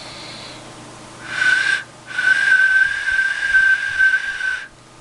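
Hand-made raw clay duck whistle blown twice: a short toot, then after a brief break a long, steady, high whistle on one pitch. It still sounds with a single voice, which the maker puts down to the newly pierced side hole having probably clogged with clay.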